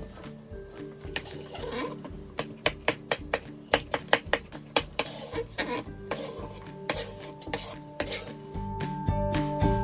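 Chef's knife dicing peeled cucumber on a wooden cutting board: a quick, irregular run of sharp knocks of the blade on the wood, thickest in the middle.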